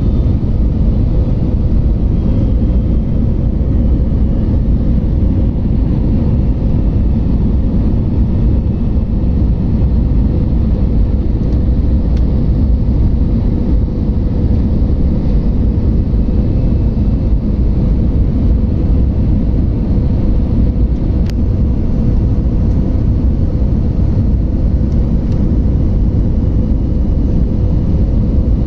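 Airliner cabin noise: the steady low rumble of jet engines and rushing air, with a faint constant hum and no change throughout.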